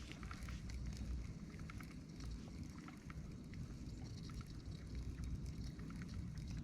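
Water lapping faintly against the hull of a small fishing boat, with scattered light clicks and a steady low rumble.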